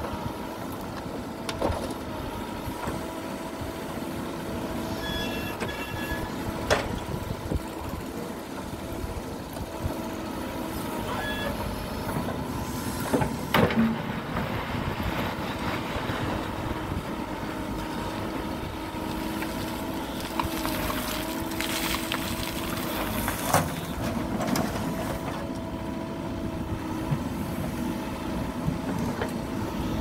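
Mahindra SX90 backhoe loader's diesel engine running under load, its pitch wavering as the hydraulics swing and dig with the backhoe arm, with a few sharp knocks of the bucket and gravel.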